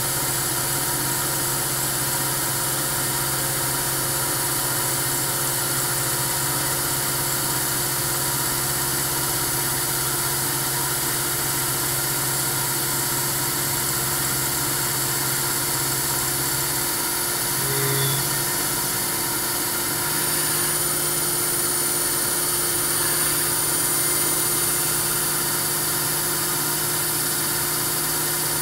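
Fadal CNC machining center running, its end mill cutting metal expansion links with a steady machine hum and a high whine. About two-thirds of the way through the hum changes briefly, then the machine settles back to a slightly higher steady tone.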